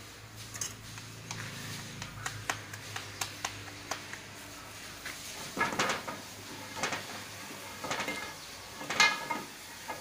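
Steel kitchen utensils and a steel bowl clinking and knocking on a counter during paratha making: scattered light clicks, then a few louder clattering clinks in the second half.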